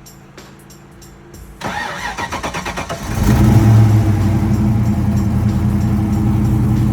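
Ford Mustang SN95 cold start: the starter cranks for about a second and a half, then the engine catches and settles into a loud, steady idle. It is breathing through an exhaust whose mufflers are not yet welded.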